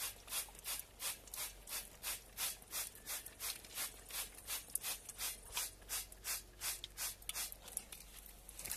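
Hand trigger spray bottle being pumped quickly, about three short hissing sprays a second, misting chemical copper-plating solution onto a figurine.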